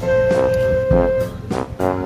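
Instrumental background music with a drum beat and keyboard or brass notes, one note held through the first second.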